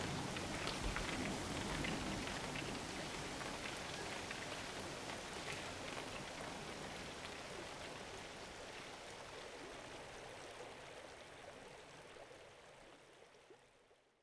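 Steady rushing water with scattered small drip-like ticks, fading out slowly over the last several seconds and then ending.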